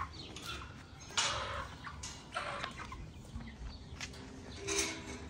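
Free-ranging chickens clucking and calling in several short, separate bursts: about a second in, around two seconds in and again near the end.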